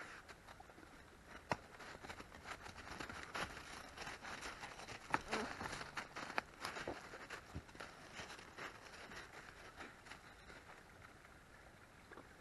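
Footsteps crunching and rustling along a trail, with irregular crackles and a sharp click about a second and a half in.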